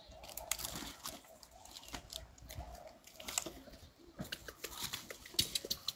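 Scattered faint crunches and clicks of macaques picking food off dry leaf litter and eating peanuts.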